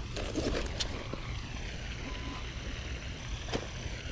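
Steady low outdoor rumble with two sharp clicks, one under a second in and one about three and a half seconds in.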